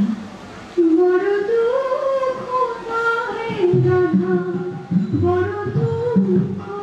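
A song with a singer's voice over instrumental accompaniment comes in suddenly about a second in, the melody sliding up and down in long held notes.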